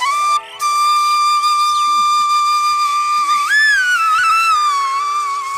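Background flute music: long held notes that slide into one another, over a steady low drone.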